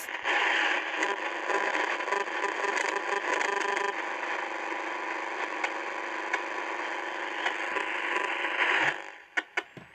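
Old AM radio tuned to about 530 kHz, giving out steady hiss and crackle: electrical interference picked up from a mobile phone lying next to it, with its screen on and out of airplane mode, trying to reach the GSM network. The noise stops about nine seconds in, followed by a few clicks.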